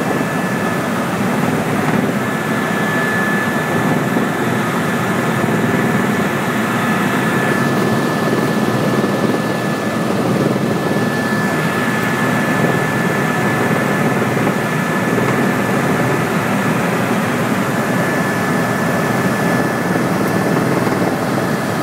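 Tour helicopter in steady cruising flight, heard from inside the cabin: a dense, unchanging engine and rotor noise with a thin steady whine over it.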